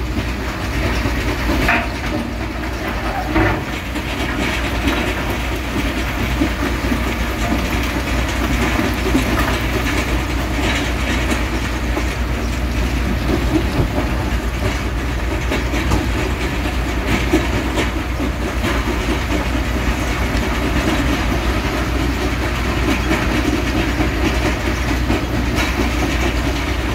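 Steady, loud noise of a Volvo EC380DL excavator's diesel engine and hydraulics working alongside a tracked mobile rock crusher, with a continuous rattle and clatter of rock through the crusher and now and then a sharper knock as rock tips from the bucket into the hopper.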